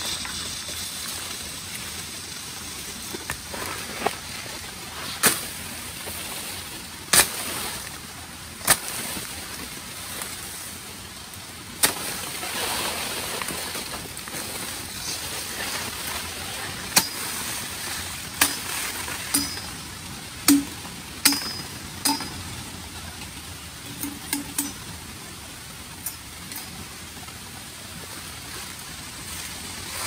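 Machete blade chopping and trimming green bamboo: about a dozen sharp, irregular knocks, coming faster in the second half, some ringing briefly off the hollow stem, over a steady background hiss.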